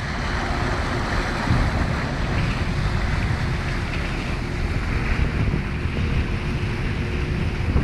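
Wind buffeting the microphone over the rushing, churning water of a motorboat's wake, with a faint steady engine hum underneath.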